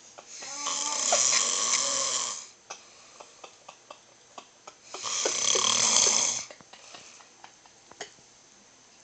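A man snoring: two long, loud snores about four seconds apart, each lasting about two seconds, with faint clicks in the quiet between them.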